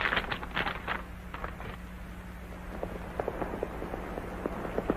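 Horses' hooves clopping on a dirt trail, irregular hoofbeats growing louder and closer toward the end. A few soft clicks and rustles come in the first second.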